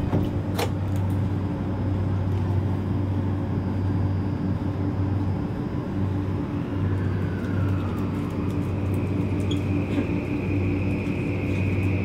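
Inside a Tokyu 3020 series commuter train car as it starts off: a steady low hum under the running noise, two sharp knocks right at the start, and from about seven seconds in the electric traction motors' whine rising in pitch, then holding high as the train accelerates.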